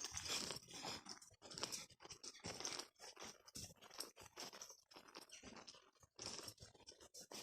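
Horse's hooves crunching on a dirt trail at a walk: faint, irregular crunching steps, several a second.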